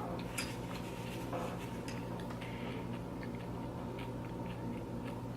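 Quiet eating sounds: scattered small clicks and clinks of tableware as she eats loaded nachos, over a steady low hum.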